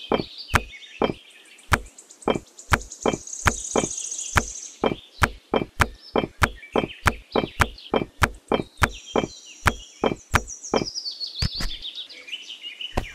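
Miniature clay bricks clacking as they are dropped one by one into a small woven bamboo basket and onto each other: a string of sharp clacks, two or three a second, with birds chirping.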